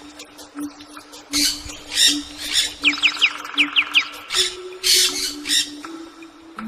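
Birds squawking in harsh, scratchy calls, with a quick run of sharp falling chirps near the middle.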